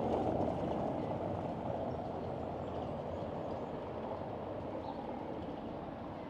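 Street traffic: a passing vehicle's low rumble slowly fading away, with a few faint bird chirps.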